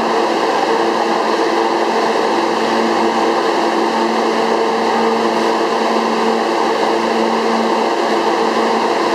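R143 subway train standing in the station, its air-conditioning and auxiliary equipment humming steadily with a few held low tones.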